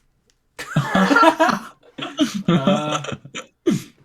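A man laughing and chuckling in two stretches, with a short falling vocal sound near the end.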